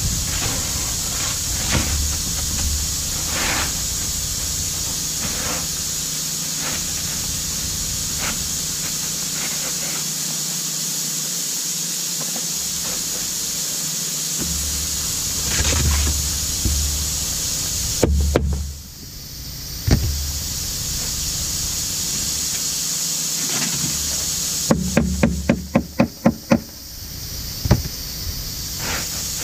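Hands-on roof repair on asphalt shingles: scattered scraping and handling sounds over a steady high hiss, a short cluster of sharp knocks about two-thirds of the way through, and a quick run of about nine sharp knocks near the end.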